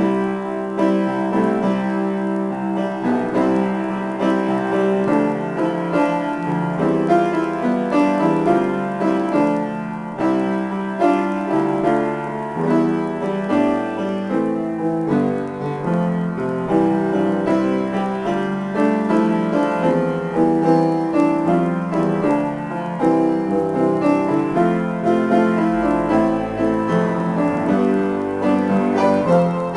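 Grand piano played in a continuous improvisation, with dense chords and running notes; a deep bass note joins near the end.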